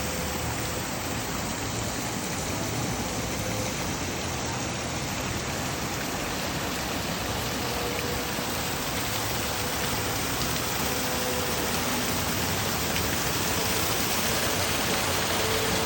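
Waterfall rushing, a steady wash of falling water that grows slightly louder near the end.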